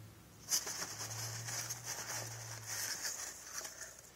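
Rustling and crinkling of paper-towel packing and a plastic deli cup being handled in a styrofoam-lined shipping box, with small clicks. It starts about half a second in and stops just before the end.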